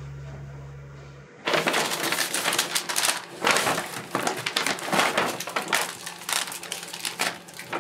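Paper bags and clear plastic packaging rustling and crinkling in a busy, uneven run as they are handled and opened. It starts about a second and a half in, after a held music chord dies away.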